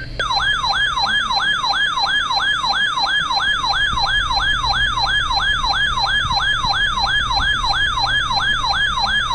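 A weather radio receiver's electronic alert siren, sounding loudly as a fast train of falling sweeps, about three a second. It signals an incoming weather alert.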